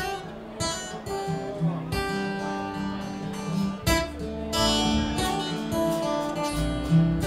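A live band playing a song's guitar intro. Picked guitar notes come first; strummed chords and sustained low notes join about two seconds in, and bass comes in heavily in the second half.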